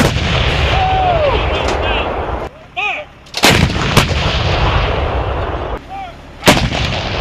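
M777 155 mm towed howitzers firing: four heavy booms, near the start, about a third of the way in, half a second later, and near the end. Each boom is followed by a long, low roll of echo.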